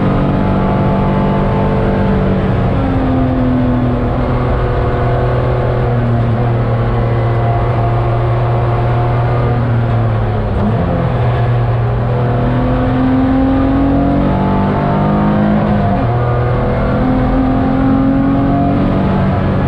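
BMW E46 330 track car's straight-six engine under hard driving, heard from inside the cabin: the engine note holds, rises and falls with brief dips about ten and sixteen seconds in, over road and wind noise.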